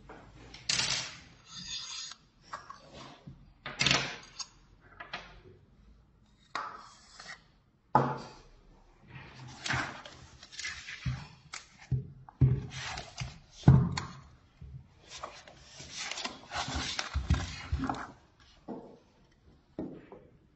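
Handling noise of a printer media roller being assembled: a steel shaft and black plastic end caps clicking, scraping and knocking against each other and the wooden desk in irregular bursts.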